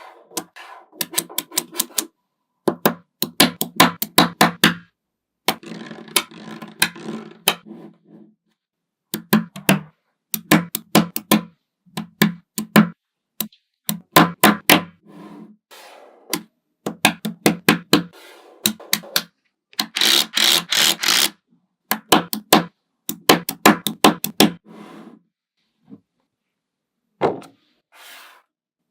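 Small magnetic balls clicking and snapping together in quick runs of sharp clicks, in short bursts broken by silent gaps. About two-thirds through comes a denser rattling stretch, as of many balls jostling at once.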